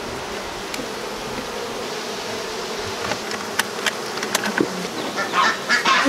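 Honeybees buzzing in a steady hum around open hives, with a few sharp clicks after the middle.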